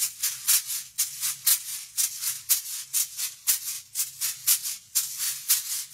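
Hip-hop beat intro: a high, hissy shaker-type percussion pattern playing on its own at about four hits a second over a faint low tone, with no kick or bass yet.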